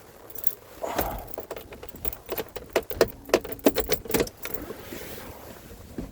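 A quick run of sharp clicks and light knocks, like small hard objects being handled, densest in the middle.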